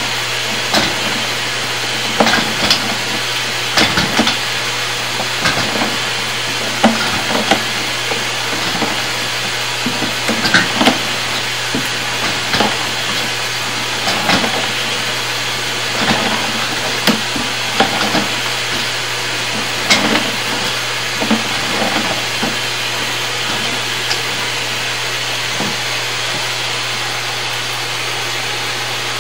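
Sewer inspection camera being pushed along a sewer pipe: a steady hiss and low electrical hum, with irregular knocks and scrapes every second or two as the push cable and camera head move through the line.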